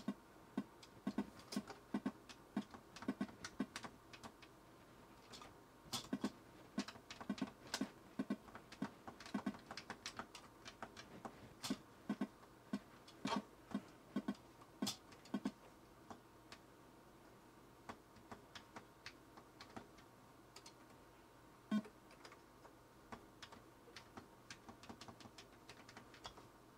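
Commodore Plus/4 keys being pressed during a game: irregular clacks in uneven bursts, with faint steady tones underneath.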